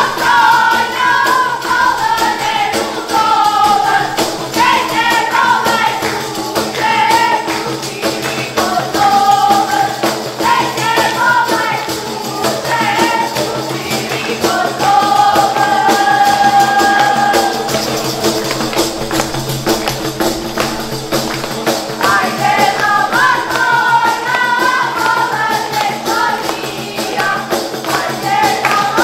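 Albanian folk wedding song: women singing in phrases to a steady beat on large def frame drums, with one long held note past the middle.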